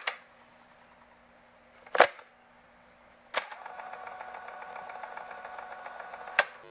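Sharp clicks at the start and about two seconds in over a faint electrical hum. Another click about halfway through sets off a steady mechanical whir, which stops with a last click near the end.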